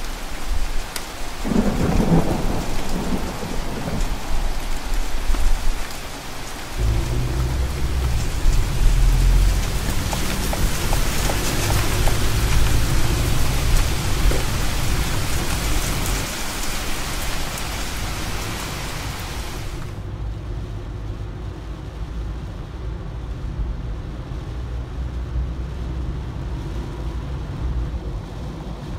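Heavy rain with thunder: a rumble about two seconds in and a long roll from about seven to sixteen seconds. About twenty seconds in the hiss of the rain cuts off suddenly, leaving the duller, quieter rumble of a car driving in rain, heard from inside.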